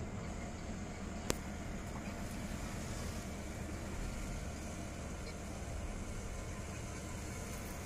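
Crawler excavator's diesel engine running steadily, heard from a distance, with one sharp click about a second in.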